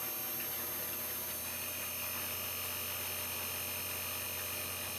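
Outdoor unit of an AUX split inverter air conditioner running, its compressor and fan motor giving a steady hum, with a faint high whine coming in about a second and a half in. The unit is running normally again after its IPM (inverter power module) was replaced.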